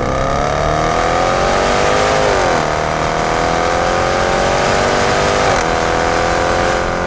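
Exhaust of a Range Rover Sport's 510 hp supercharged 5.0-litre V8 under hard acceleration, heard right at the tailpipes. The revs climb, fall sharply at an upshift about two and a half seconds in, then climb again, with a second, smaller shift about five and a half seconds in.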